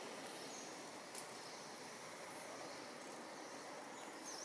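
Steady outdoor background hiss among trees, with a few faint, brief high chirps and a soft click about a second in.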